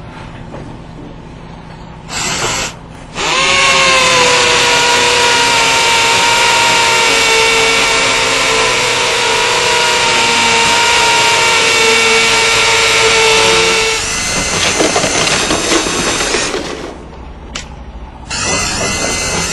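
DeWalt power drill: a short blip of the motor about two seconds in, then it spins up with a rising whine and runs at high speed for about ten seconds. A rougher, noisier stretch follows, and there is another short burst near the end.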